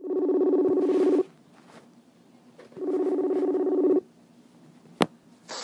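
Outgoing call ringing tone, two pulsing rings each a little over a second long, then a short click as the call is answered.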